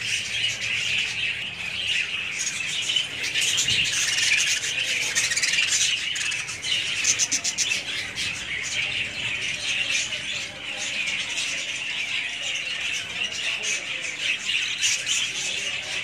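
Caged pet parrots chattering and squawking without a break, a dense run of high chirps and short sharp calls.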